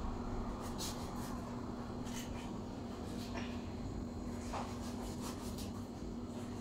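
Knife cutting through whole fish on a plastic cutting board: a few faint scraping strokes, over a steady low hum.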